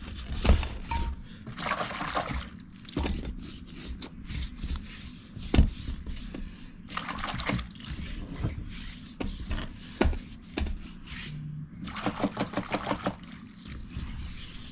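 Soapy water being slopped and rubbed onto a dirt bike tire and rim by hand, wet splashing and scrubbing with scattered knocks.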